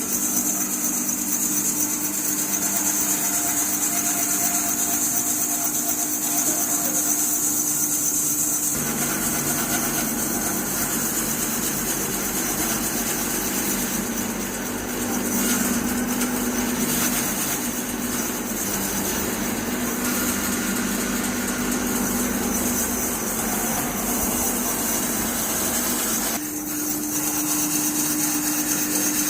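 Powered saw running steadily while cutting large timber. Its tone changes about nine seconds in, as the blade takes the load of the cut, and returns to its free-running tone near the end.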